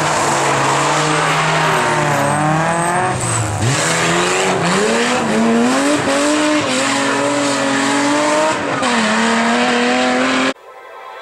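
Rally car engine revving hard, its pitch climbing and dropping back several times as it shifts gear, with some tyre squeal. The engine sound cuts off abruptly near the end.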